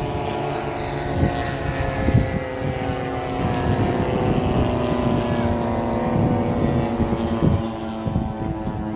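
Piston engine of a radio-controlled model aircraft running steadily, its pitch drifting gently down and up, with a few low thumps on the microphone.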